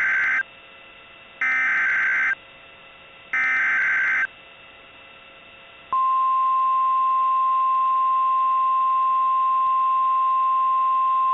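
Emergency Alert System SAME header: the end of one short burst of warbling digital data and two more, about two seconds apart. About six seconds in, the steady single-pitch NOAA Weather Radio 1050 Hz alert tone begins, the signal that a warning broadcast follows, here a severe thunderstorm warning.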